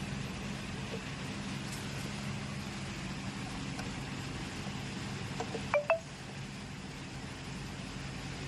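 Treadmill running with a steady low hum. A little before six seconds in, a few faint ticks are followed by two sharp metallic clinks that ring briefly.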